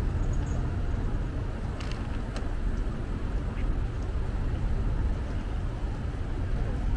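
Steady city street traffic noise: a continuous low rumble of passing road vehicles.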